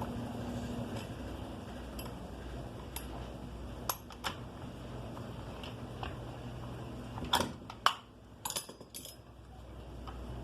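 Light metallic clicks and clinks of small engine parts and tools being handled as the piston pin is taken out of a Stihl FS 290 brushcutter's two-stroke engine, scattered at first and sharpest in a quick cluster of clinks past the middle.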